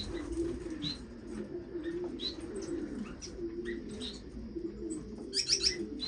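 Cage birds calling: a continuous low wavering call runs underneath short high chirps that come about once a second, with a quick cluster of chirps near the end.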